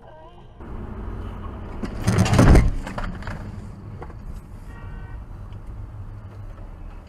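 Road and engine noise heard from inside a car driving on a highway, with a loud rushing burst about two seconds in that lasts under a second.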